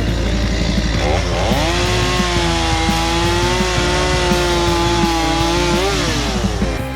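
Chainsaw revved up to full throttle about a second in, held at high speed for several seconds, then let back down toward idle near the end.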